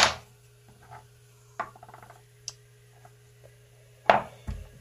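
Steel lathe tool bits and small tooling pieces clinking as they are picked up and set down on a bench: a loud clack at the start, a little rattle of clicks about a second and a half in, and another loud clack about four seconds in, followed by a dull thump.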